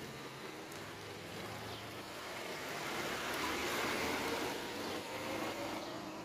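A car passing close by on a wet road: engine and tyre hiss swell to a peak about four seconds in, then fade.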